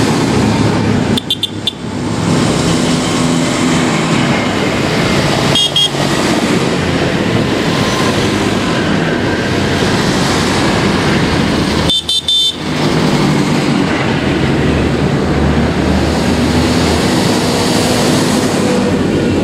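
A convoy of large farm tractors drives past one after another, their diesel engines running loud and steady. Short horn toots sound a few times along the way.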